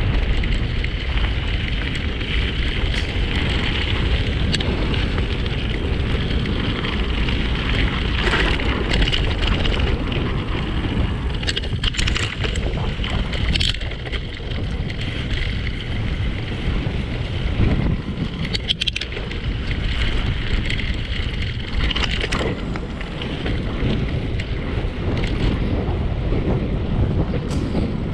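Wind buffeting the microphone and tyres rolling over a gravel path during a fast downhill ride, with a few short clicks scattered through.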